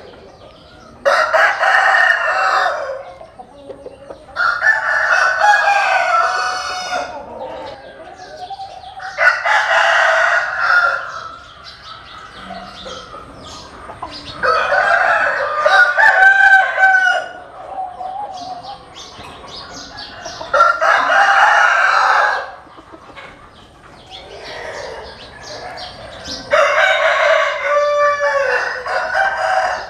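Roosters crowing in turn: six long crows of about two seconds each, coming every five or six seconds.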